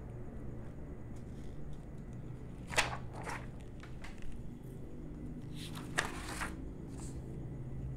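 Paper pages in a ring binder being turned: a short rustle about three seconds in and a longer one around six seconds, over a low steady hum.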